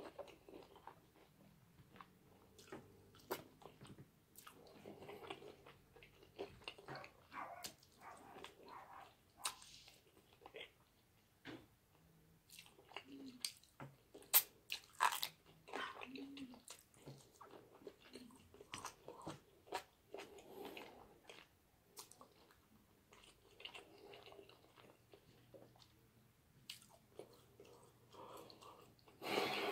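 Close-miked open-mouth chewing and lip smacking on fried chicken dipped in cheese sauce: soft, irregular wet smacks and clicks, with a louder burst right at the end.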